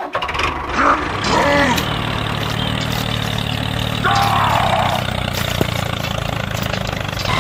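Engine sound of a single-cylinder diesel walking tractor running steadily, setting in abruptly and cutting off at the end. A few short falling voice-like calls sound over it about one and four seconds in.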